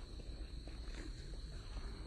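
Outdoor garden ambience while walking: a steady low rumble on the microphone under a constant high-pitched insect drone, with a few faint footsteps on the path.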